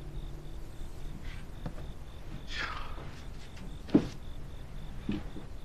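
Quiet room with a low hum and a soft rustle, then a single sharp knock about four seconds in and a lighter tap shortly after.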